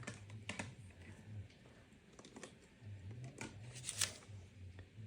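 Faint handling noise: a few scattered light clicks and rustles, the sharpest about four seconds in, over a faint low hum, as a power plug and cord are handled.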